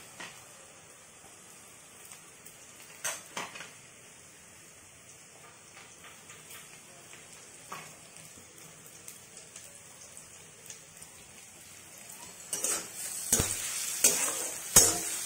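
Onions frying in a pan with a faint sizzle and a few clinks of a utensil. About twelve seconds in, the sizzle grows louder, with spatula scraping and clatter as ginger-garlic paste goes in and is stirred.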